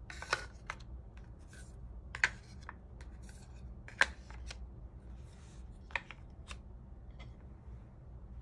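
Large wooden number cards being slid and set into a wooden box: irregular knocks of wood on wood, two sharp ones about two and four seconds in, with softer sliding and rubbing of the cards between.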